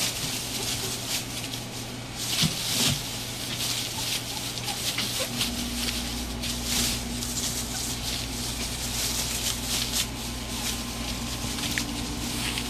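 Rottweiler puppies scrambling through shredded-newspaper bedding, the paper strips rustling and crinkling in uneven bursts. A low steady hum comes in about five seconds in.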